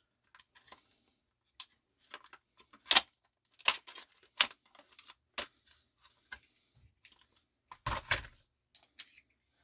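Utility knife blade cutting into a stiff plastic blister pack: irregular sharp cracks and clicks of the plastic, with short faint scraping hisses as the blade drags along it.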